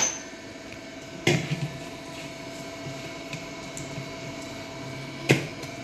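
Soft dough being pressed and kneaded by hand in a stainless-steel bowl, with three sharp knocks against the metal bowl: one at the start, one about a second in, and one near the end.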